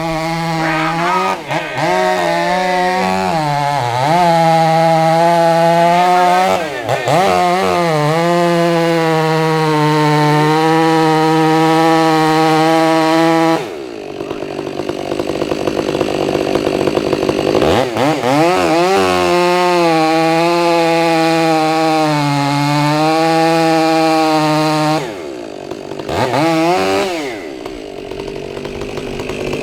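Chainsaw running and revving up and down, its pitch rising and falling again and again; it eases off about halfway through and again near the end.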